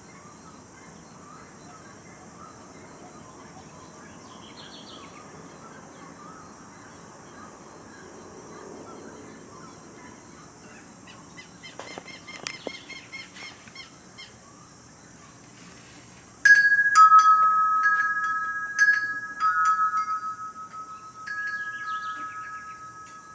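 Quiet early-morning outdoor ambience with faint bird calls. About two-thirds of the way through, a wind chime starts ringing: several strikes of two or three clear notes that ring on and slowly fade.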